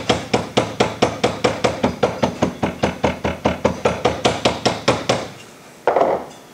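Small hammer tapping rapidly and evenly, about four light blows a second, flattening a rope crankshaft seal on a bench vise. The tapping stops about five seconds in, and a brief scuffing noise follows near the end.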